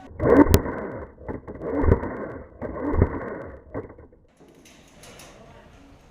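Muffled, unclear talking in three short bursts, with a single sharp click about half a second in, then quieter background.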